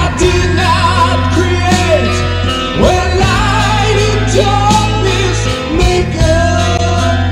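Progressive/power metal band playing, with singing over electric guitars, bass and drums.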